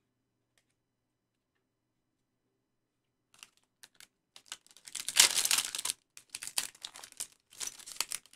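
About three seconds of near silence, then a trading-card pack's plastic wrapper crinkling and crackling as it is opened and handled. The crinkling is densest about five seconds in, with shorter crackles after.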